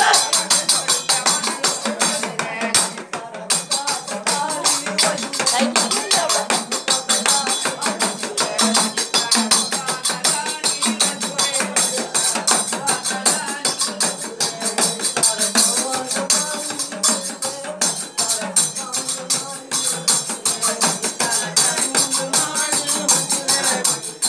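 Dakla, the Gujarati folk drum of goddess worship, beaten in a fast, even rhythm with a bright jingling ring, under men's devotional singing.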